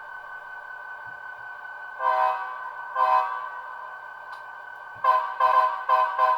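Sound-decoder air horn of a Bachmann GP35 model locomotive, set to the Nathan K3 horn, sounding through the locomotive's small onboard speaker. It gives two short blasts, then four quicker toots near the end, over a steady hum.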